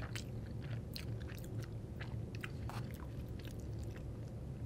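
Close-miked chewing of a fried potato latke with sour cream: irregular small wet clicks and crunches from the mouth, over a steady low hum.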